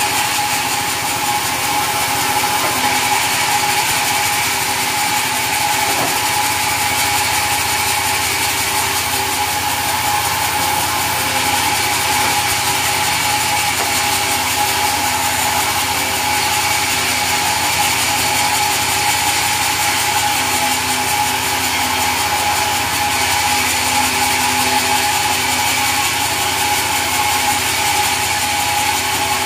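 Sawmill saw machinery running steadily: a continuous loud mechanical din with a steady high tone, unbroken throughout.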